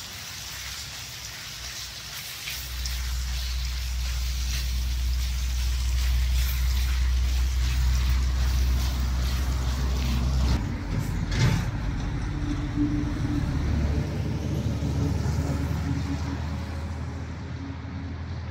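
A motor vehicle's engine running steadily, a low rumble that sets in a few seconds in and shifts in pitch about halfway, over the sizzle and spatula clatter of vegetables and pork being stir-fried in a wok.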